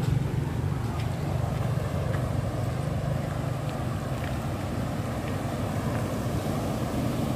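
Water rushing through a canal sluice, a steady low rumbling rush with no let-up.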